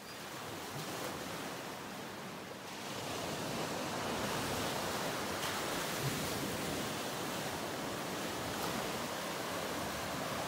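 Ocean surf: a steady wash of breaking waves, swelling a little about three seconds in.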